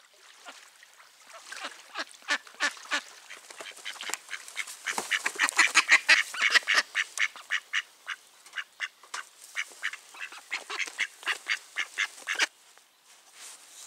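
A live decoy hen duck, a brown mallard-type hen, quacking loudly as she is handled: a long run of sharp quacks, several a second, loudest in the middle and stopping suddenly near the end.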